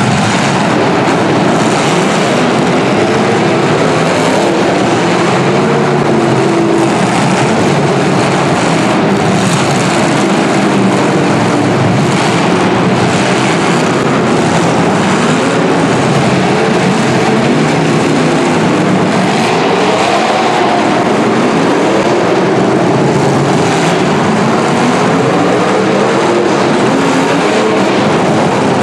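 Several full-size car engines revving hard and running at once, their pitches rising and falling over each other as demolition derby cars drive and ram.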